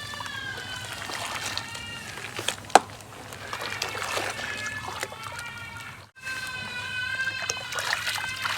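Golden sand crumbling into water, splashing and trickling, with a high, wavering whistle-like tone running through it. A single sharp tap, the loudest sound, comes a little under 3 s in, and the sound briefly cuts out about 6 s in.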